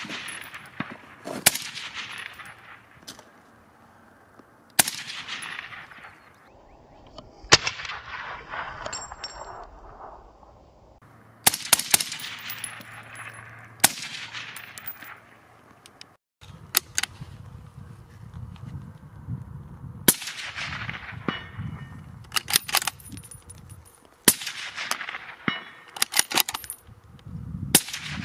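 Rifle shots through an ASE Utra Dual762 suppressor, each a sharp crack trailing off in a long echo. Five come evenly, about three seconds apart; after a break about halfway through, the shots come closer together, some in quick pairs.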